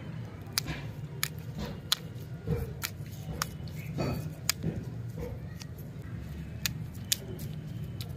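Irregular light clicks and rustles of plastic-wrapped lollipops and their paper sticks being handled, picked up and set down on artificial grass, over a steady low hum.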